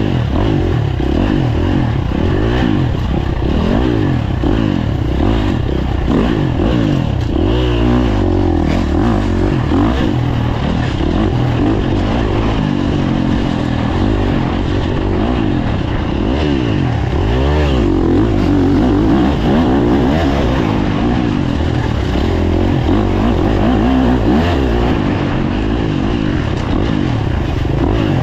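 Dirt bike engine revving up and down with the throttle while riding, its pitch climbing and dropping every second or two.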